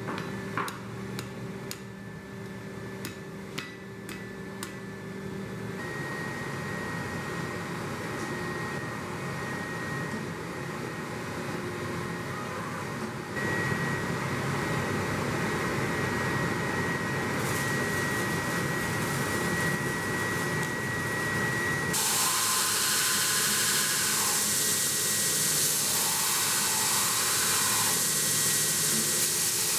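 A series of hammer blows on hot 1095 steel at the anvil in the first five seconds, over a steady hum. From about two-thirds of the way through, a belt grinder runs with a loud, even grinding noise as the steel blade is held to the belt.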